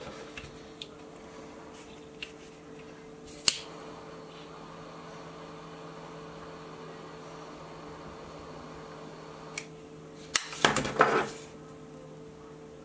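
A hand-held lighter clicks once as it is struck to melt a frayed paracord end, followed by a few seconds of faint steady sound. Near the end there is a short burst of handling and scraping as a butter knife presses the melted end down.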